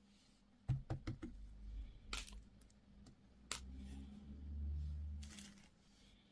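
Small plastic items being handled: a quick run of light clicks and taps about a second in, then a few short crinkling rustles, over a low handling rumble.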